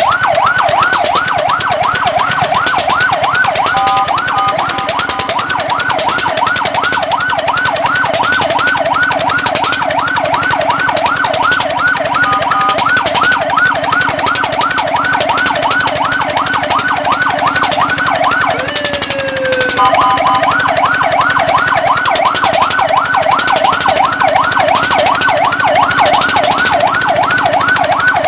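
Fire truck siren on a fast yelp, rising and falling about three to four times a second. It twice breaks briefly into steady tones, and about two-thirds of the way through it falls in one long downward sweep before the yelp starts again.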